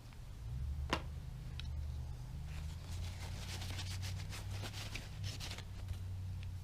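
Small handling noises from work on a brush cutter's carburetor: one sharp click about a second in, then scratching and rustling of parts and tools for a few seconds, over a steady low hum.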